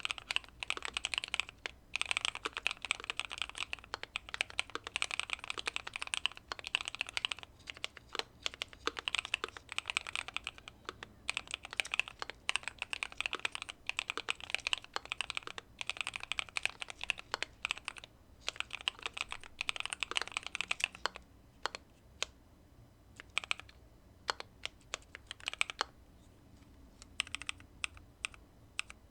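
Typing on a Keychron Q2 mechanical keyboard with factory-lubed Pearl Lemon switches, a tape mod and case foam: quick runs of keystrokes that thin out to a few single presses for several seconds after the middle, then pick up again near the end.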